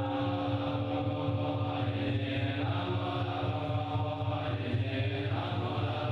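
Buddhist chanting: long held sung notes over a steady low drone, continuing without a break.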